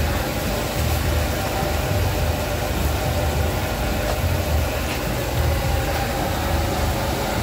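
Battered bergedil patties deep-frying in a large wok of hot oil, a steady sizzle over a low steady rumble.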